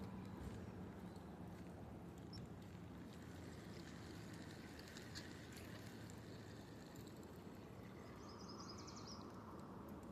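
Faint open-air lakeside ambience with a soft low hum, and a short high bird trill about nine seconds in.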